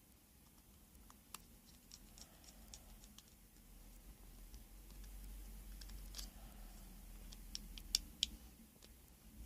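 Faint, scattered small clicks and taps of tools and plastic phone parts being handled during smartphone reassembly, with two sharper clicks near the end.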